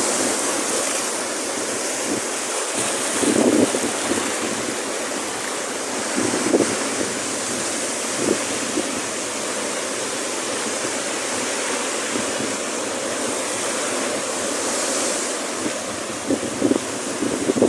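Ocean surf breaking against a rock reef: a steady rushing wash of white water, with water streaming back off the rocks. Brief gusts of wind buffet the microphone a few times.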